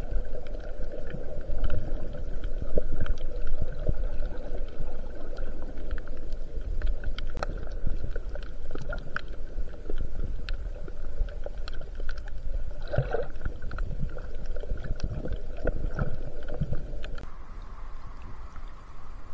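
Muffled underwater sound on a camera held below the surface: a low rumble of moving water with a steady hum and many scattered sharp clicks and pops. About 17 seconds in, the camera comes up to the surface and the sound turns quieter and thinner, a light wash of water.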